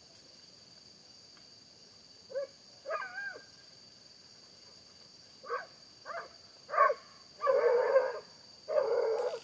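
Hunting dogs baying on the trail of an armadillo: a few short separate bays, then longer drawn-out bays in the last two seconds.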